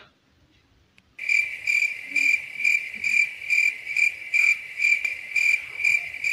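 Cricket-chirping sound effect, the stock comic cue for an awkward silence. A high chirp pulses about twice a second, starting about a second in after a brief silence.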